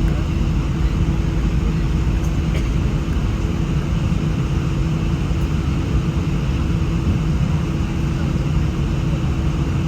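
Airbus A319 jet engines running, heard from inside the passenger cabin: a loud, steady rumble with a constant hum.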